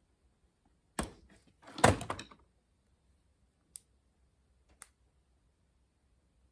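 A knock about a second in, then a louder clatter of knocks, then two light clicks: hand work with scrap wire and tools while stripping copper wire.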